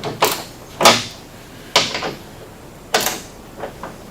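About five separate sharp clicks and knocks, roughly a second apart, as a small cover is worked loose by hand and with tools.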